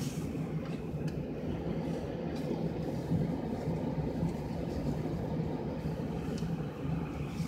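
Car driving, its steady engine and road noise heard from inside the cabin as a low, even rumble, with a few faint clicks.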